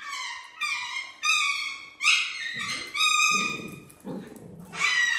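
High-pitched squealing cries from poodles play-fighting around a raccoon, coming in quick short calls about twice a second. Lower scuffling noise runs under them in the middle, and the cries pause briefly before a last one near the end.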